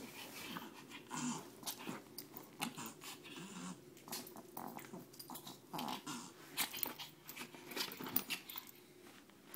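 Small Chihuahua-pug mix dog play-growling in short bouts while it wriggles and wrestles with a hand on a blanket, with many short scuffs of paws and body on the fabric.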